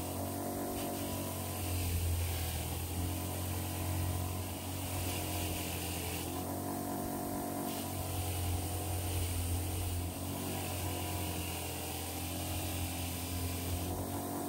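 Electric motor of a workshop power tool running steadily, its hum wavering slightly in pitch, with a hiss over it that drops out for about a second midway.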